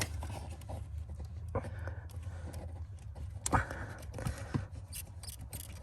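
Scattered light knocks and rustling from things being handled, over a low steady hum.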